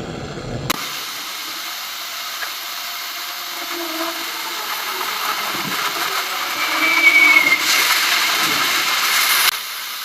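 Handheld gas brazing torch hissing steadily as it heats the copper refrigerant pipe joints of an air conditioner compressor. The hiss starts suddenly about a second in, grows louder near the end and cuts off sharply.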